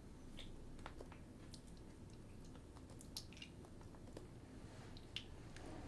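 Quiet kissing: scattered faint wet lip smacks and mouth clicks, a few of them a little louder, about three seconds in and again near the end.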